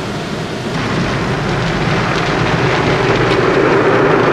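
Automatic car wash spraying water onto a car, heard from inside the cabin as a steady dense rush that grows a little louder about a second in.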